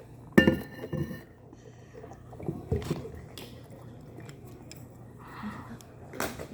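Scattered clinks and knocks of tableware and food containers being handled at a table. The loudest is a sharp clink with a brief ring about half a second in.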